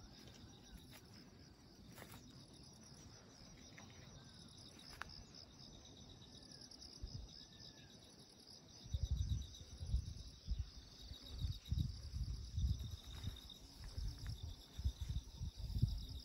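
Insects keep up a steady, rapidly pulsing high trill, with a few faint bird chirps. About halfway through, loud irregular low rumbles join in and become the loudest sound.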